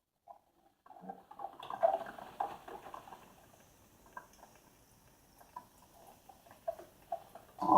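Two coffee makers starting to brew at once: irregular gurgling pops and sputters of heating water, loudest about a second after they begin, over a faint steady hiss.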